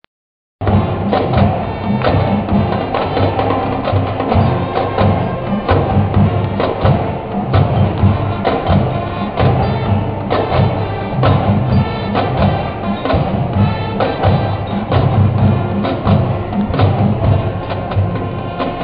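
Marching brass band playing, brass and drums together, with sharp drum strokes marking the beat. The music starts after a short silent gap at the very beginning.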